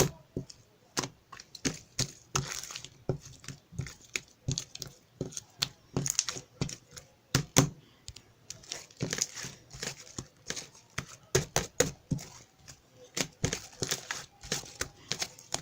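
Close handling noises: irregular crinkling and tearing with many small sharp clicks and taps, several a second.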